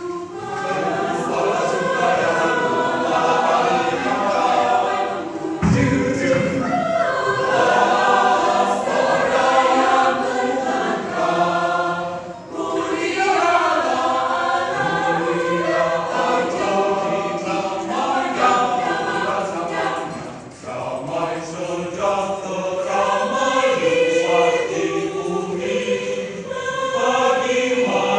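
Mixed choir of men's and women's voices singing together in sustained phrases, with short breaks between phrases about twelve and twenty seconds in.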